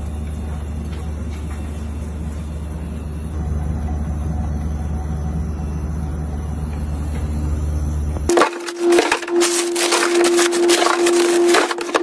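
A steady low hum from the open refrigerator. About eight seconds in it gives way to dense clicking and crackling over a steady tone as the freezer drawers and their plastic-bagged contents are handled.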